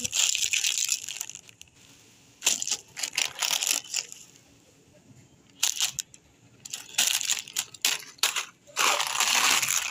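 A plastic treat packet crinkling in repeated bursts with short pauses as it is shaken, then grabbed and held in a puppy's mouth.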